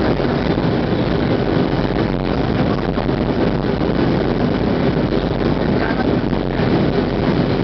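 Steady in-cabin noise of a Boeing 737-700 in flight, heard from a window seat over the wing: the even rush of air past the fuselage with the low hum of its CFM56-7B jet engines underneath.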